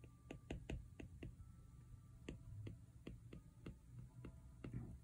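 Apple Pencil tip clicking on an iPad Pro's glass screen while handwriting: about a dozen faint, irregularly spaced taps.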